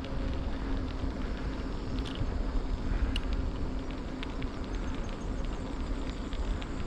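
Steady low rumble of wind on the microphone and rolling tyres while riding along old pavement, with a faint hum and scattered light ticks.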